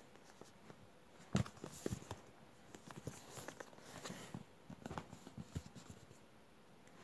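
Cardboard box being handled and turned over: irregular taps, knocks and short rustles of card rubbing against fabric and fingers, with one sharper knock about a second in.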